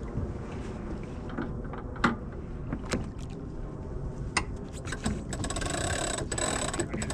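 Sailboat winch on a J/105 ratcheting as a line is worked. Scattered sharp clicks, then a fast run of pawl clicks about five seconds in, lasting nearly two seconds.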